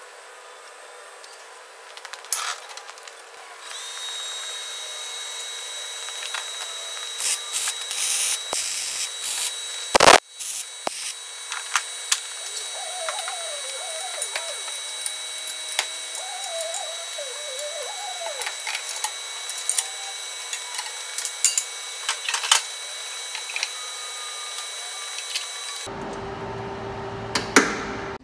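Workshop power tool running with a steady high whine, over scattered crackling and knocks, with one sharp crack about ten seconds in.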